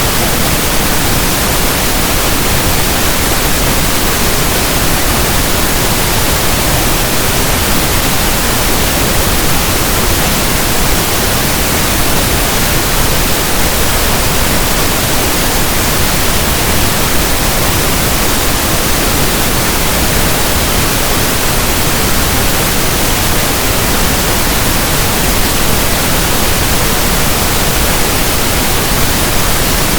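Steady pink noise: an even static hiss like a radio not tuned to a station.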